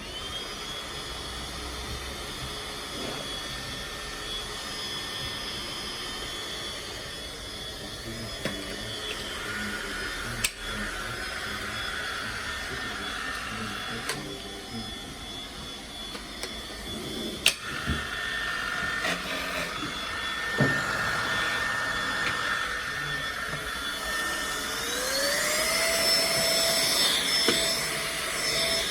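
Tefal cordless vacuum cleaner motor running with a steady high whine. About 25 seconds in, the motor speeds up: its whine glides to a higher pitch and gets louder. A few sharp clicks sound along the way.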